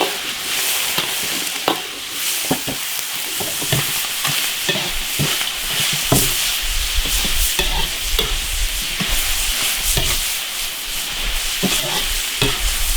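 Duck and beef tripe sizzling as they are stir-fried in a large iron wok, with irregular scrapes and knocks of the stirring against the pan. A low rumble joins in for a few seconds in the middle.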